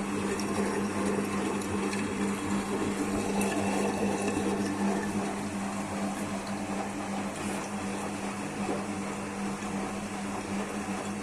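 IFB washing machine running on its rinse and spin program: a steady motor hum with water rushing through it. The sound stays level and switches on and off abruptly, about a second either side.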